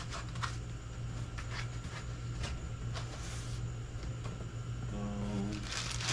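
Packaging being handled: a few light taps and short rustles over a steady low background hum, with a brief hummed voice about five seconds in.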